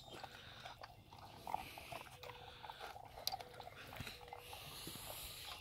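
Irish wolfhounds crunching and chewing dry kibble from a shared stainless steel bowl, a run of irregular sharp crunches.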